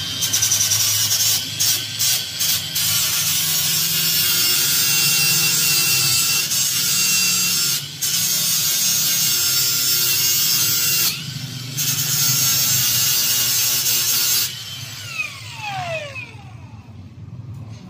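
DeWalt 20V cordless angle grinder cutting through a steel motorcycle exhaust pipe, a loud grinding with a steady high whine, easing off briefly a few times. About 14 to 15 seconds in it is released and spins down with a falling whine.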